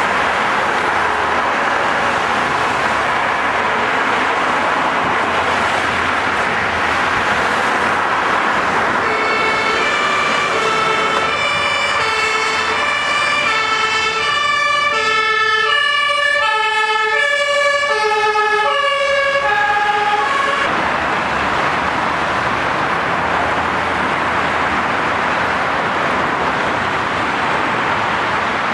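Steady traffic noise from a multi-lane city motorway. From about nine seconds in to about twenty seconds, a German two-tone emergency-vehicle siren (Martinshorn) alternates between a lower and a higher note, then gives way to the traffic again.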